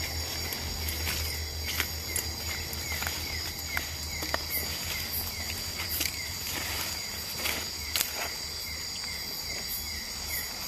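A night-time tropical forest insect chorus: crickets trilling high and steady, with another caller repeating a short falling chirp about two to three times a second. Footsteps crackle through leaf litter and brush against the undergrowth.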